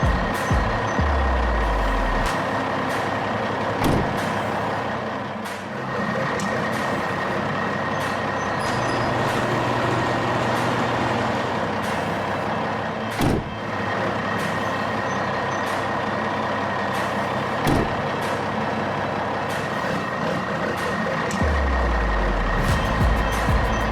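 Heavy truck engine running steadily with a thin high whine over it, broken by three sharp knocks.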